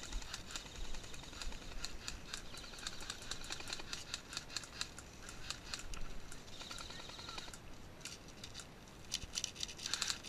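Airsoft guns firing at a distance: scattered clusters of rapid, faint clicks, heaviest around the middle and again near the end.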